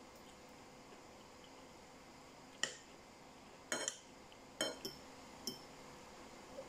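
Metal spoon and fork clinking against a ceramic bowl of rice, about five sharp clinks with a short ring, starting about two and a half seconds in.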